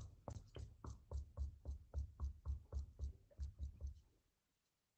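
A steady run of light taps or knocks, about three a second, each with a dull low thud, stopping about four seconds in.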